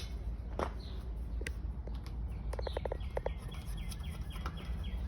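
Birds calling: a quick run of about seven pulsed notes about two and a half seconds in, followed by a regular series of short, repeated falling chirps. A low steady hum runs underneath.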